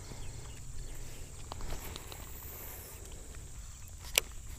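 Low rumble and rustling handling noise on a body-worn action camera while an angler moves and works his rod at the water's edge, with a single sharp click about four seconds in.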